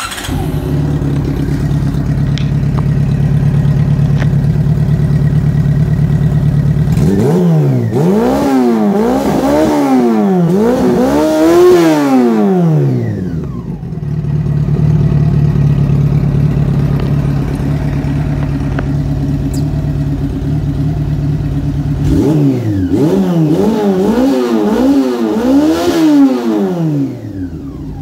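Honda CB400SF's 399 cc inline-four engine, fitted with an aftermarket chrome silencer, fires up and settles into a steady idle. It is revved twice with a quick run of four or five throttle blips, each a rise and fall in pitch, and drops back to idle between them.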